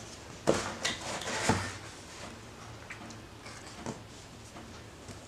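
Cardboard box being opened by hand: a sharp snap as the lid flap comes free about half a second in, then about a second of cardboard scraping and rustling, and a light click near the end.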